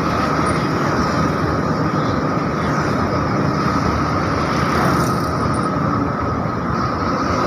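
Steady running noise of a moving bus heard from inside: engine and road noise, with no marked change.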